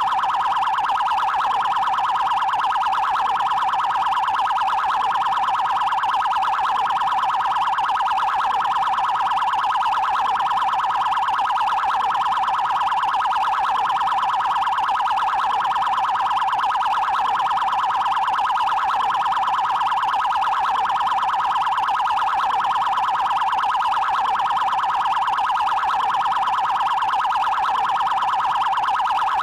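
Federal Highway Police (PRF) electronic siren sounding its 'prioridade' tone: a fast, even warble pulsing without a break at a steady level.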